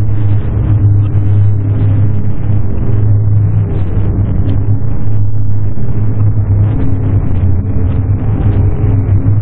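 Harsh noise music: a loud, dense distorted rumble over a steady low drone, with a few held higher tones that shift now and then and no beat.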